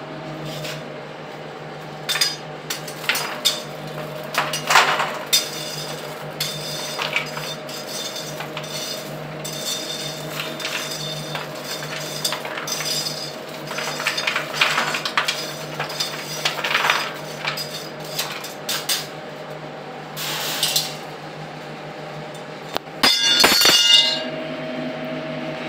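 Perforated steel trays of chilli-coated cashews clinking and clattering as they are handled, with the nuts rattling as they are tipped from one tray into another. A steady machine hum runs underneath, and the loudest clatter comes near the end.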